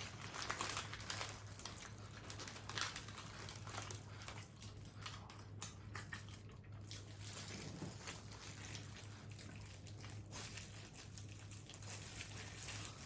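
Close-miked eating of fast food: chewing with many small irregular crackles and clicks, over a steady low hum.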